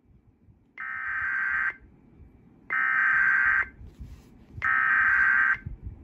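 Emergency Alert System SAME header: three bursts of buzzing digital data tones, each about a second long and about a second apart, played through a laptop's speakers. They are the coded start of a National Weather Service tornado warning.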